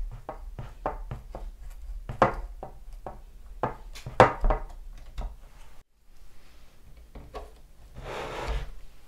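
Craft knife cutting through the edges of thin wooden trim strips on a wooden model ship's stern: a run of irregular short clicks and scrapes, with a longer scraping rub near the end.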